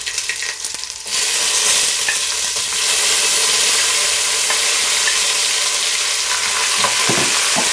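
Onions frying in hot ghee and oil in a kadai: a steady, loud sizzle that jumps up sharply about a second in.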